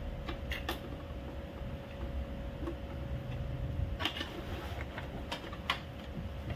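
Scattered sharp clicks and taps of hands and a screwdriver working screws and plastic parts on an Epson L3210 inkjet printer's casing: a couple about half a second in, then more around four and five and a half seconds, over a steady low hum.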